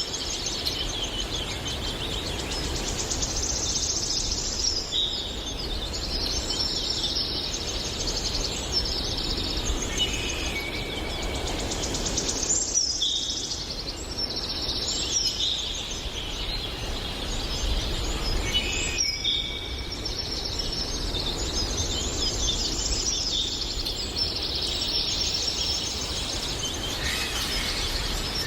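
Several birds singing and chirping at once in a dense, unbroken chorus of high chirps and trills, over a steady low rumble.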